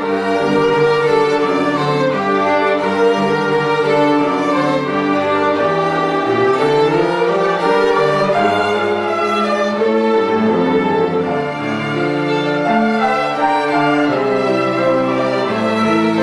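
A string ensemble playing a melodic piece: violins carry the tune over held notes from lower strings such as cello, several parts sounding at once without a break.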